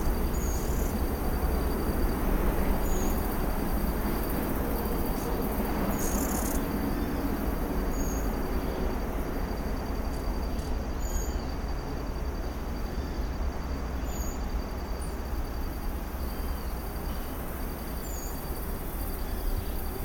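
An insect trilling steadily in a fast, high, pulsed note with brief breaks. Short high chirps come every two to four seconds, over a steady low rumble.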